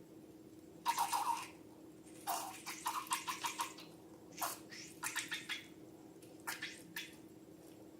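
Slime being squished and pressed by hand: several spells of wet, crackly squelching and small air-bubble pops, with short pauses between them.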